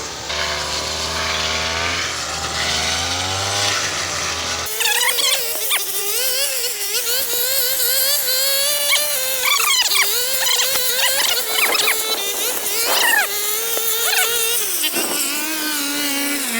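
Two-stroke brush cutter running, its high buzzing engine note rising and falling as it cuts through tall weeds. A steadier, lower engine hum is heard for the first few seconds, then gives way to it.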